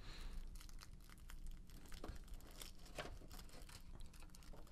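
Faint crinkling and crackling of clear plastic packaging wrap being handled and pulled at, in scattered short rustles.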